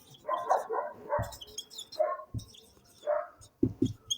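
A dog barking in short calls, several times.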